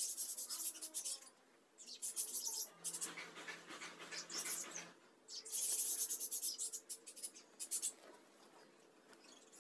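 Silk saree fringe threads and fabric rubbing and rustling between fingers as knots are tied, in several short scratchy bursts with quieter gaps between.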